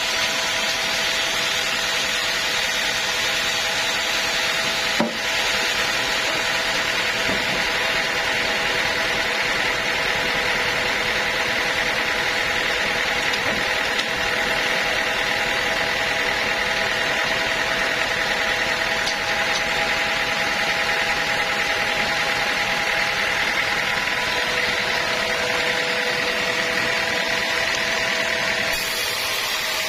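Sawmill saw running steadily through an old teak log, a continuous whining cut with several held tones over a noisy hiss. A single sharp click sounds about five seconds in.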